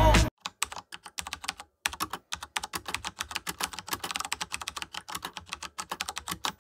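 Typing on a keyboard: quick, irregular key clicks, several a second, with a short pause just before two seconds in.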